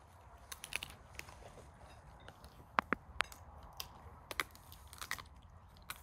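A person biting and chewing food, heard as a scatter of sharp, irregular clicks.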